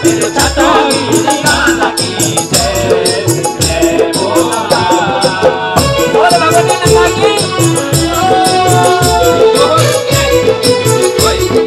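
Loud Garhwali folk devotional music for the Nanda Devi doli, in an instrumental passage: a steady drum beat under busy percussion strokes, with a sliding, held melody line on top.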